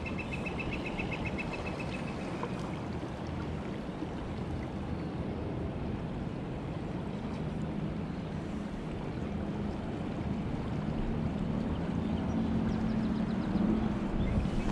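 River water running steadily. Rapid, evenly spaced ticking over the first few seconds, and a low engine hum building in the last few seconds.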